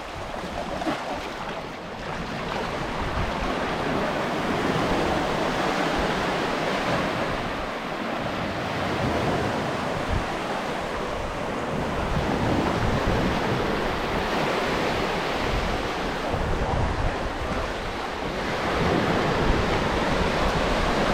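Waves breaking and washing on the shore, the wash swelling and easing every few seconds, with wind buffeting the microphone.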